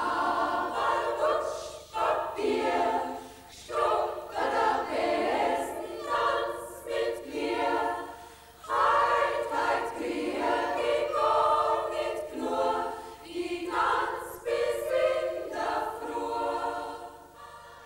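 Women's choir singing a cappella, in phrases with short breaks between them.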